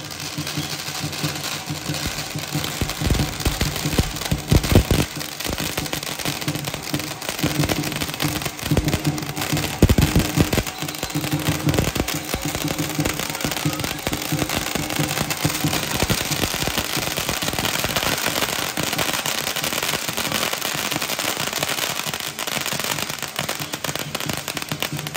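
Handheld firework fountains and firecrackers crackling and hissing without a break, with heavy low thumps about four seconds in and again about ten seconds in.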